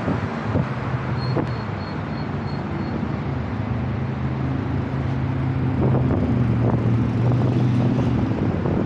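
A vehicle engine running at low speed in slow traffic, a steady low hum that grows a little louder about five seconds in, with wind noise on the microphone. A short run of faint, high, even beeps sounds about a second in.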